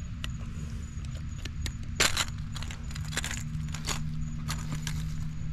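Metal pliers clicking and rattling against the lure's hooks while working them out of a snook's mouth, with a sharp clack about two seconds in and more clicks after. A steady low rumble runs underneath.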